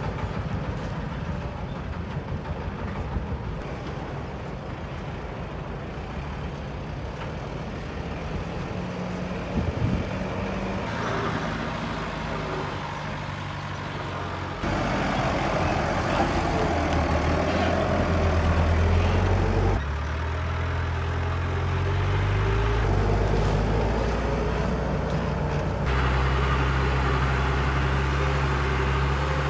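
Heavy diesel vehicle engines running under load. The sound changes abruptly every few seconds from one engine to another, and is louder in the second half.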